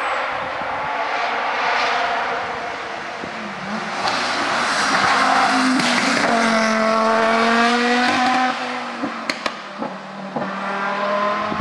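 Audi Sport quattro S1 rally car's turbocharged five-cylinder engine at full throttle as the car approaches and passes close by. It builds from about four seconds in, is loudest as the car goes past, and drops off sharply about eight and a half seconds in. A few sharp cracks follow, and an engine note is heard again near the end.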